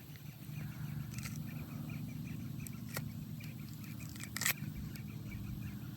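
Outdoor ambience: a steady low hum, faint chirping and three sharp clicks, about one, three and four and a half seconds in, the last the loudest.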